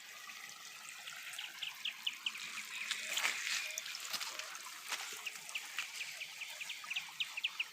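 Water running over the spillway of an overflowing farm pond after heavy rain, a steady trickling hiss with a few brief louder splashes. Runs of short high chirps, several a second, sound over the water.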